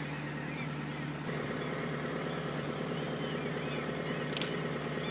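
Steady engine hum. A second, higher drone joins about a second in.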